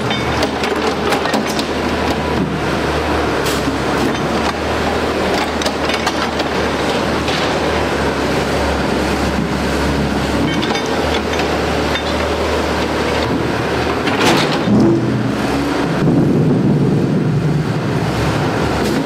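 Diesel engine of heavy earthmoving machinery running steadily under load, with frequent knocks and scraping clatter of broken foundation rubble. It gets louder about three-quarters of the way through.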